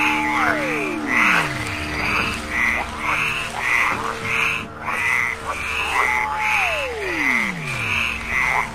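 Frog-like croaking calls repeating about twice a second, alternating between a slightly higher and a lower call, over a steady low hum. Twice, about half a second in and again about six and a half seconds in, a tone slides steeply down in pitch over about a second and a half.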